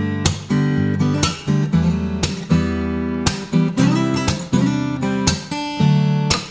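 Acoustic guitar playing strummed chords, with a sharp attack on each strum.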